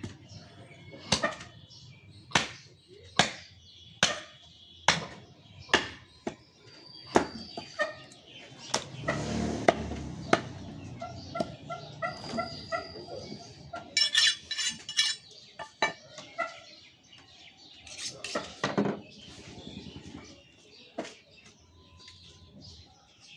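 A heavy butcher's cleaver chopping through beef onto a wooden log block: sharp strokes about once a second for the first six seconds, then more irregular strokes. Birds call in the background around the middle.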